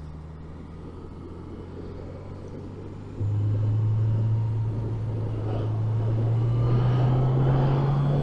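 Suzuki GSX750 inline-four engine heard from inside the rider's helmet, running low and steady at first; about three seconds in the throttle opens, the engine gets suddenly louder and its note climbs slowly as the bike accelerates, with wind noise building over it.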